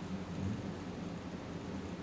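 Room tone: a steady low hum with hiss, no distinct events.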